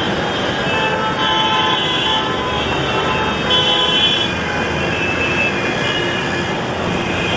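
City traffic noise: a steady rumble of road traffic with several short car horn toots scattered through it.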